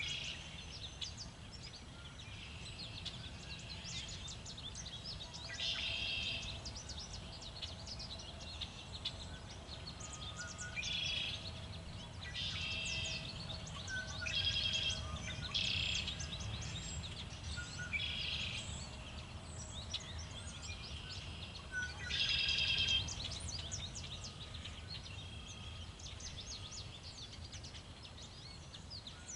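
Backyard songbirds calling: many quick chirps, with louder clusters of repeated notes every few seconds, over a steady low rumble of wind.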